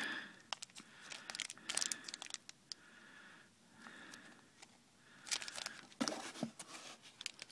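Clear plastic bags crinkling as small glass perfume bottles are handled inside them, coming and going with scattered light clicks and taps.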